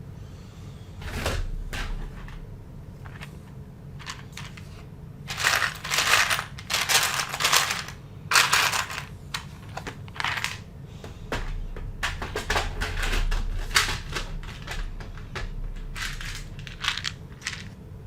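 Loose plastic Lego pieces clattering and rattling as a hand rummages and sifts through a pile of parts, in repeated flurries of clicks, busiest about five to nine seconds in and again from about twelve seconds on.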